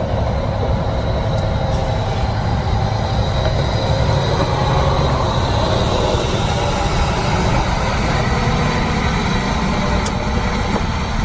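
Steady low rumble of diesel truck engine noise.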